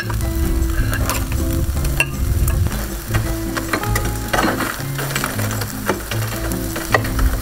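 Skewered pork bombette and zucchini slices sizzling over a charcoal grill, with a few light clicks as the skewers are handled. Upbeat samba music plays underneath with a steady bass line.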